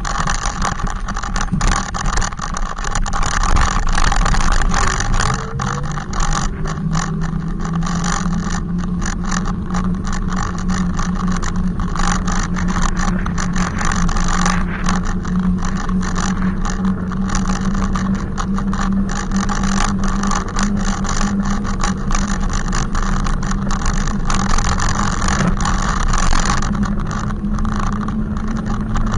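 Loud electric motor whine of an e-bike riding close behind, rising in pitch about five to six seconds in and then holding steady, over a constant rushing noise of the ride.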